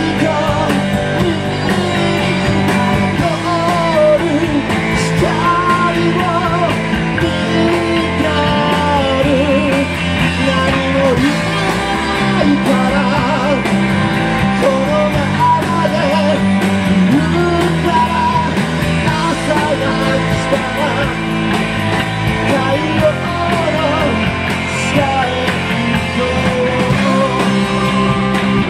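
Live rock band playing loud and without a break: strummed electric guitar from a Telecaster-style guitar over bass and drums, with a man singing.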